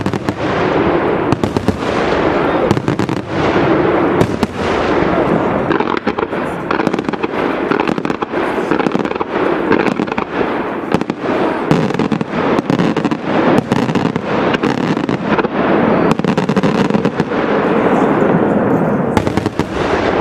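Aerial fireworks display firing shells in rapid succession: a dense, continuous barrage of bursts with many sharp reports overlapping one another.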